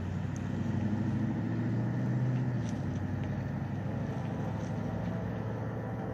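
A vehicle engine running with a steady low drone, growing louder to about two seconds in and then easing off.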